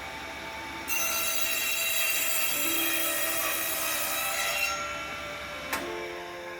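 A power saw cutting wood: a loud, harsh cut with a high whine begins about a second in and lasts about four seconds, then dies away. A sharp click follows near the end.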